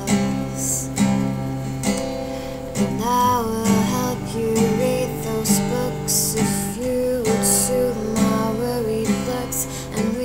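Acoustic guitar being strummed, playing the chords of a pop song's instrumental break.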